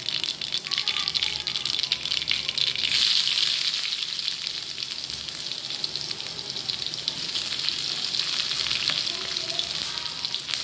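Cumin seeds frying in hot oil on a flat black tawa: a steady sizzle with many small crackles and pops. About three seconds in the sizzle grows louder as sliced onion goes into the oil.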